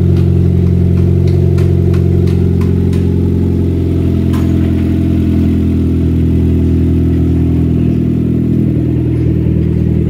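Nissan Sentra engine running at idle after its water-contaminated fuel was flushed and replaced, loud and steady, with a massive exhaust leak. A few sharp clicks sound over it in the first half.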